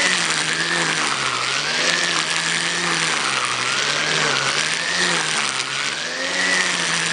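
Corded electric string trimmer running at full speed, its motor whine rising and falling in pitch about once a second as the spinning nylon line sweeps through the grass, with a steady hiss of line cutting grass.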